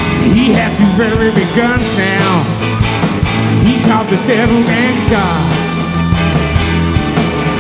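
A live blues-rock band playing electric guitars, bass and drums, with a wailing lead line bending in pitch over the top.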